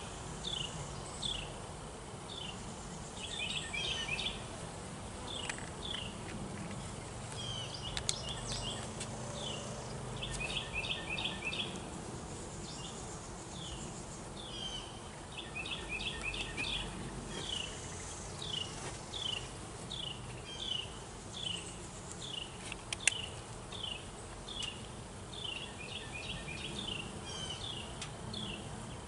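Honeybees buzzing around an open hive, a low steady hum. Over it run short, high, falling chirps in quick runs of two to five, repeating throughout, and there are two sharp clicks.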